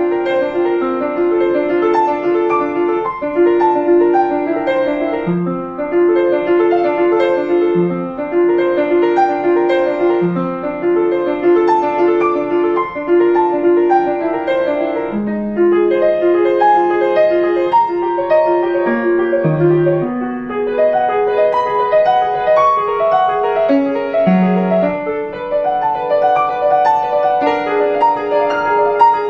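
Upright piano played solo: a continuous run of quick, evenly repeated notes in the middle and upper range, with single low bass notes sounding every few seconds.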